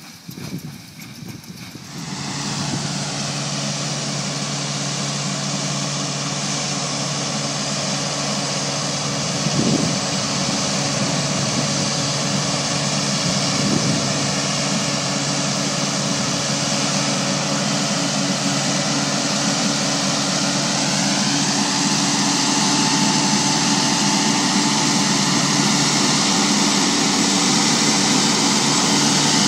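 Aebi TP450 transporter's diesel engine working steadily under load as it climbs a steep meadow pulling a loaded hay loader wagon. It comes in about two seconds in and grows gradually louder as the machine nears, with a higher whine that rises in pitch a little past twenty seconds in.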